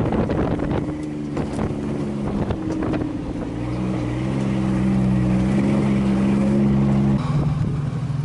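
Pickup truck engine pulling under load as the truck drives across sand dunes, heard from inside the cab with wind on the microphone. The engine note climbs a little and grows louder partway through, then changes abruptly near the end.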